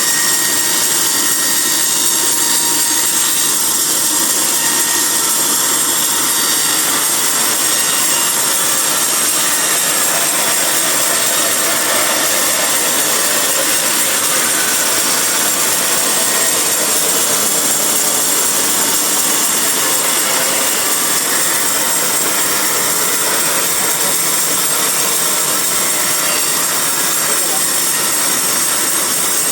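Bandsaw mill sawing a teak log: a steady, loud saw noise that runs on evenly without a break.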